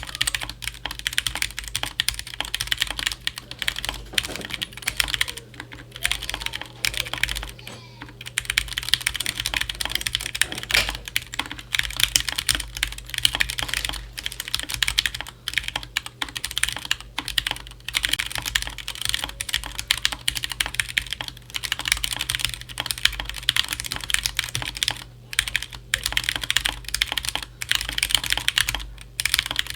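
Fast typing on a Glorious GMMK Compact mechanical keyboard with unlubed Gateron Brown switches: a dense, rapid run of key clacks with a few brief pauses.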